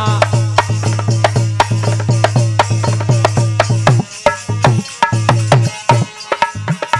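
Instrumental break in Bundeli devotional folk music: hand drums played in a fast, even rhythm, about four to five strokes a second, with hand clapping. A steady low tone drops out about four seconds in, after which the low drum strokes bend downward in pitch.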